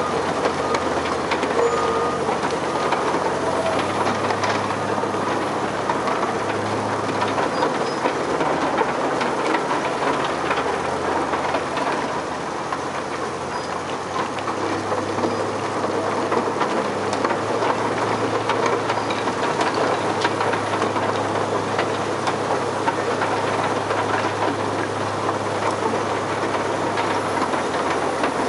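Extec S-5 mobile screening plant running as it sieves topsoil, its diesel engine humming under a steady clattering rattle from the screen, with a Cat 950H wheel loader's diesel engine working alongside. A reversing alarm beeps for the first few seconds.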